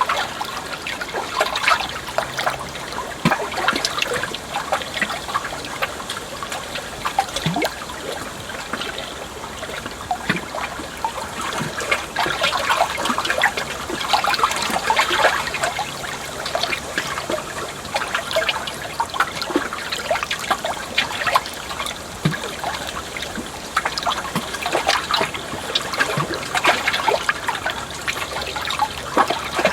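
Water trickling and splashing steadily, with a dense patter of small bubbling plinks, like a shallow stream running over stones.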